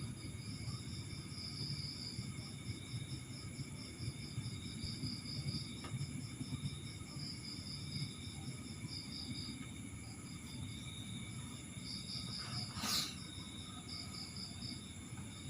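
Crickets chirping faintly in fast-pulsed trains, with a low steady background rumble and one short handling clatter about thirteen seconds in.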